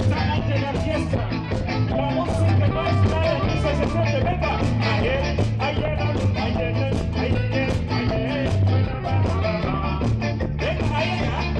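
Live band playing with a lead singer over bass, guitar and drums, in a rough amateur recording.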